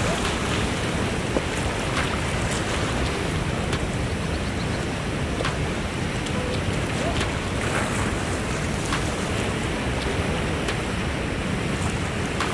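Steady wind buffeting the microphone over the wash of lake waves, with a few faint ticks scattered through.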